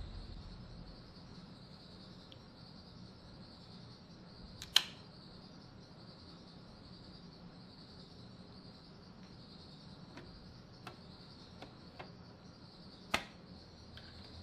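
Music fading out at the start, then a faint steady hiss with a few small sharp clicks and ticks of hard plastic parts being handled, the two loudest about five seconds in and about thirteen seconds in.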